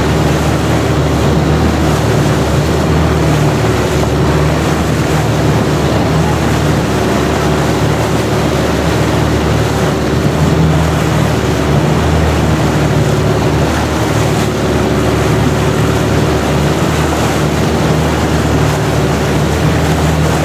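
Long-tail boat's engine running steadily at cruising speed, heard from aboard over the rush of water along the hull.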